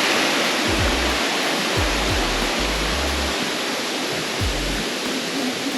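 Steady rush of El Limón waterfall, with background music's deep bass and kick beat laid over it.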